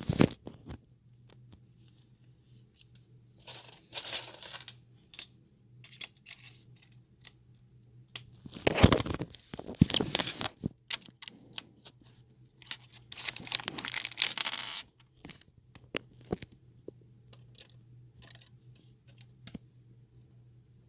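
Small plastic Lego pieces clicking and clattering as they are handled, with scattered sharp clicks and three longer spells of rummaging rattles, about four seconds in, around the middle and near the three-quarter mark.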